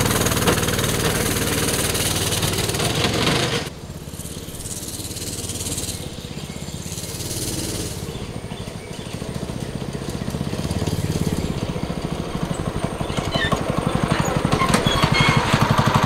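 Go-kart's 212cc 6.5 hp single-cylinder overhead-valve engine (a Harbor Freight replacement motor) running under throttle as the kart drives away. The sound drops sharply about four seconds in, rises and falls as the kart goes around, and grows louder again near the end as it comes back.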